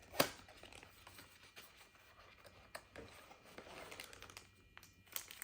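Handling of the mic kit's packaging: a sharp click just after the start, then scattered light taps and clicks with some soft rustling of plastic and cardboard.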